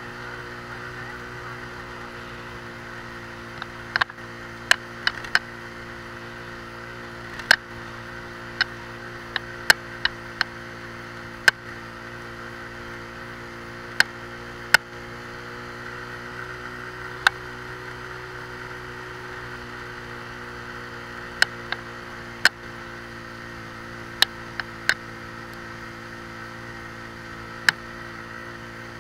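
Motorcycle engine running steadily at cruising speed, recorded from the bike itself, with sharp clicks and knocks at irregular intervals, a score or so of them.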